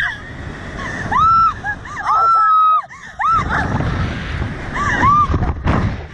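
Two women riding a slingshot ride, shrieking and laughing in long high-pitched squeals in the first half, then shorter yelps near the end, over a steady rush of wind noise.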